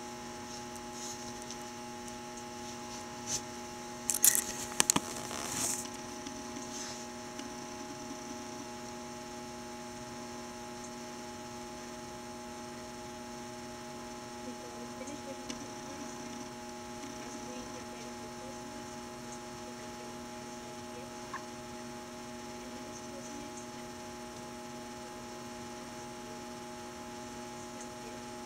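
Steady electrical mains hum made of several low tones, with a cluster of loud clicks and knocks about four to six seconds in.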